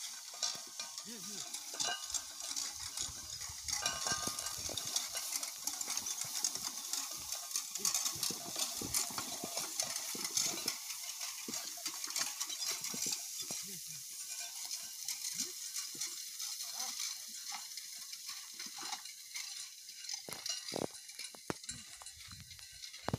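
Horse-drawn hay rake working through dry hay: a steady dry crackling rustle with light clatter from the rake. A few dull knocks come near the end.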